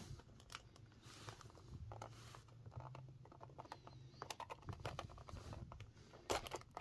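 Hobby knife blade scoring and picking at a cardboard blister card, faint scratching with many small clicks, and a few louder clicks near the end.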